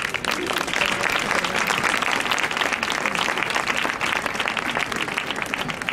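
A crowd applauding, many hands clapping together in a dense patter that swells at the start and thins out near the end.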